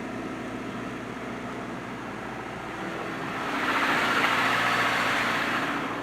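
2012 Jeep Compass four-cylinder engine idling just after starting, its no-crank fault fixed. About three and a half seconds in, a louder hissing rush swells for about two seconds and fades.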